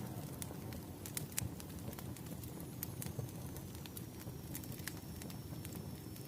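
Firewood burning: irregular sharp crackles and pops over a steady low rush of the flames. A faint, thin high tone sets in about three seconds in.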